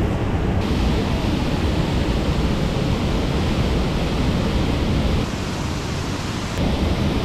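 Steady, loud rushing of a waterfall close by, with sudden shifts in its tone a little after the start and again near the end.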